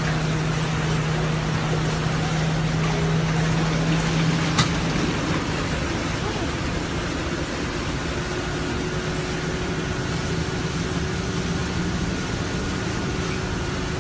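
City bus running, heard from the driver's cabin: a steady hum and rush of engine and road noise on a wet, flooded road. A single sharp click comes about four and a half seconds in, and the low hum changes pitch around then.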